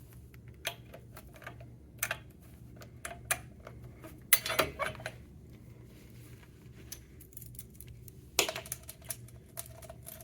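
Irregular light metallic clicks and clinks from a manual fire alarm pull station being handled and pulled, with its keys. The loudest clusters come about four and a half seconds in and again near the end, over a low steady hum.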